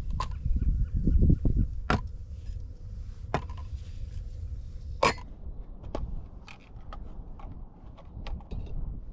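Camp coffee gear being handled on a wooden table: a string of sharp clicks and knocks as mugs, lids and containers are picked up and set down, with smaller ticks near the end, over a low rumble.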